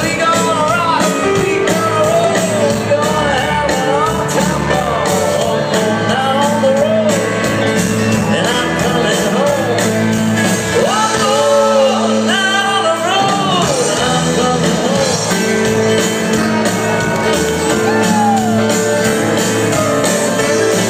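Live Americana band playing a song with a lead singer, heard from the audience in a concert hall. Acoustic guitars, upright bass, keyboard and drums play under the voice.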